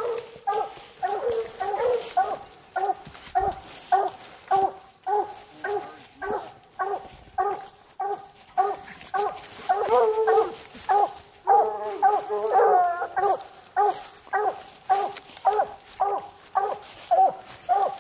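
Coonhounds barking at a tree, steady chop barks about two a second with a few drawn-out bawls mixed in: hounds treeing a raccoon.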